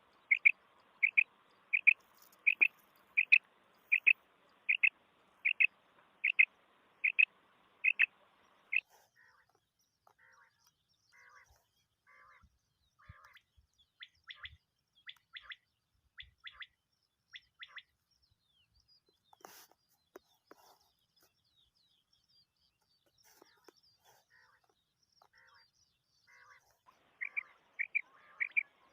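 Common quail calling: a run of about a dozen short, sharp notes, a little under a second apart, for the first nine seconds. Fainter scattered calls follow, then a loud series of notes starts again near the end.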